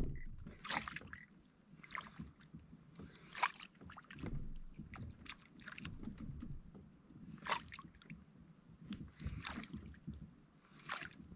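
Water sloshing and splashing against a fishing kayak's hull in short, irregular splashes every second or two.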